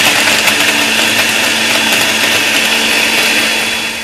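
Countertop electric blender running steadily, its motor humming under the churn of milk, coffee and ice cubes being blended into a frothy cold coffee.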